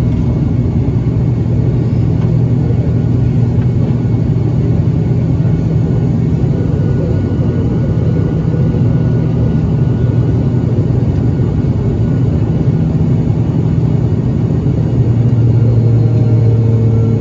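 Turboprop airliner's engines and propellers heard from inside the cabin during the climb after takeoff: a loud, steady low drone.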